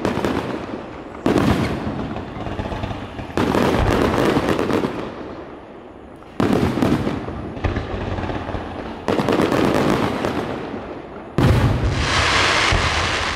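Aerial firework shells bursting overhead: about six sudden booms a second or two apart, each followed by a crackle that fades away. Near the end a burst is followed by a steady hissing crackle.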